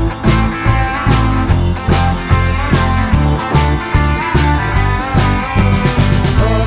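Instrumental break of a country song: electric guitar playing a lead with bent, wavering notes over bass and a steady drum beat.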